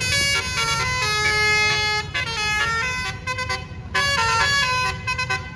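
Bus "telolet" basuri horn, a set of multi-trumpet air horns, playing a quick tune of stepping notes with a few short breaks, stopping abruptly near the end. Low vehicle and crowd rumble underneath.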